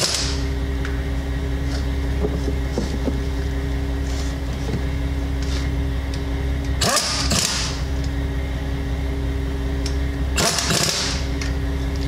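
Air impact wrench on its lowest setting running down the bolts of a trailer's oil bath hub cap in three short bursts, one at the start, one about seven seconds in and one near the end. A steady low mechanical hum runs underneath.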